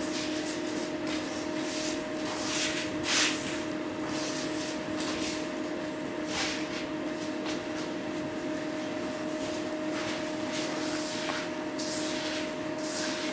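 Hands rubbing and scraping through dry grains scattered on the floor, in irregular rustles with the loudest about three seconds in, over a steady low hum.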